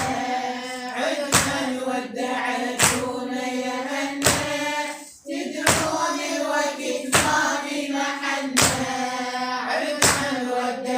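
Women's voices singing a Shia lamentation refrain together, kept in time by a sharp hand strike about every one and a half seconds. The singing breaks off briefly about halfway through.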